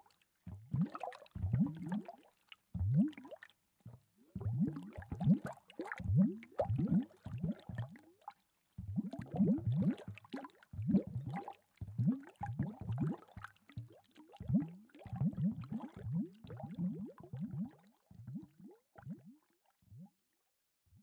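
Water cooler bottle glugging as air bubbles up into it: a long, irregular run of short gurgles, each rising quickly in pitch, one or two a second, thinning out near the end.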